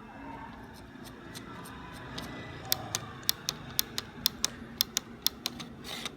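Computer mouse scroll wheel, repaired with a resin 3D-printed part, being rolled through its notches: a run of sharp, evenly spaced clicks at about four a second, starting about three seconds in, with fainter ticks before them.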